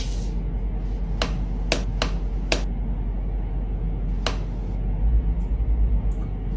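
Six sharp, separate clicks spaced unevenly over a steady low hum.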